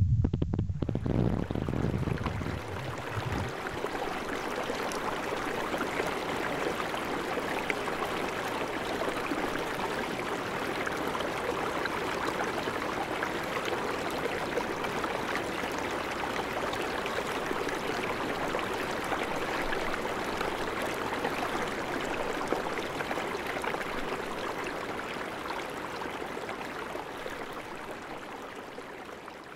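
Steady rush of flowing stream water, fading out near the end. The tail of a song with drums dies away in the first few seconds.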